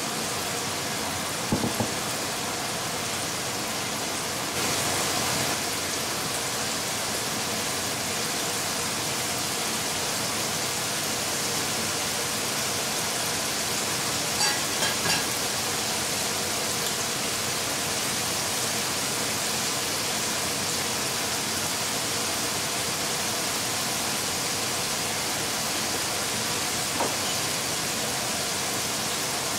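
Chicken wings deep-frying in hot oil: a steady sizzle, with a few short clicks that stand out, about two seconds in, three together around the middle and one near the end.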